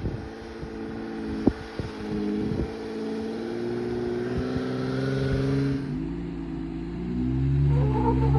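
Jeep Gladiator's 3.6-litre V6 running through an AWE Trail Edition aftermarket exhaust while driving, its note slowly rising. About six seconds in the note drops lower, then grows louder as the engine pulls harder. A few sharp knocks come early on.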